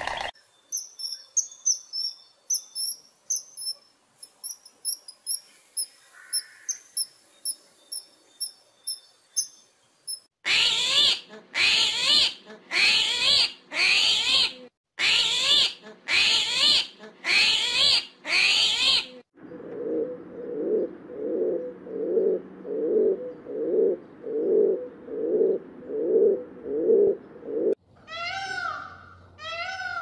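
A run of different animal calls: thin high chirps repeating a few times a second, then about eight loud harsh calls roughly a second apart, then a lower call pulsing steadily. Near the end a peacock gives loud repeated calls that rise and then fall in pitch.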